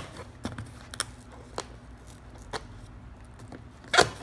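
Metal staples being pried out of a corrugated cardboard box flap with a staple puller: a string of sharp metallic clicks and snaps at uneven intervals, the loudest about four seconds in.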